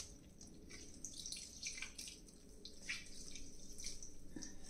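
Boiled bathua greens squeezed by hand, their water dripping and trickling back into a stainless steel pan in faint, irregular drips and squishes.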